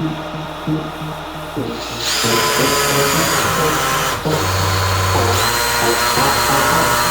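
Electric drill running, its bit cutting into a steel rifle barrel, a hard metal that has already broken two bits. It starts about two seconds in with a high whine, briefly drops off near the middle and picks up again, over electronic music that plays alone at first.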